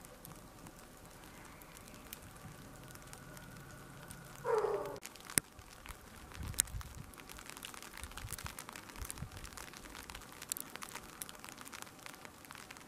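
Faint outdoor ambience of a snow-covered street: a soft steady hiss with scattered light ticks and crackles. About four and a half seconds in, one brief louder sound falls in pitch, and a sharp click follows.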